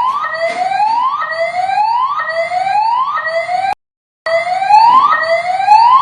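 EST voice-evacuation fire alarm sounding its whoop tone between spoken announcements: a loud rising sweep repeating about once a second. The sound cuts out completely for about half a second a little after halfway.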